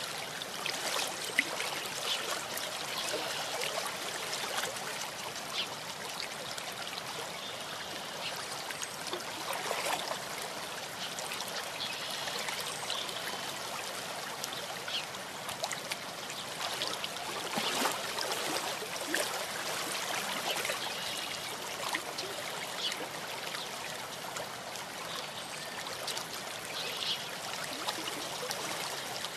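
Small stream trickling: a steady babble of running water with many small splashes.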